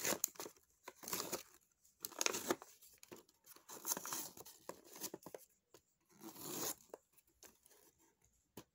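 Cardboard toy box being torn open and a clear plastic blister pack pulled out of it: several short, irregular bursts of tearing and crinkling.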